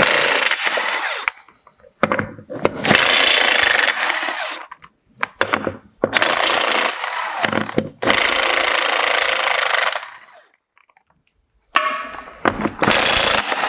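Power impact wrench undoing the wheel nuts on a tractor's front wheel hub, running in five or so bursts of a second or two each with short pauses between.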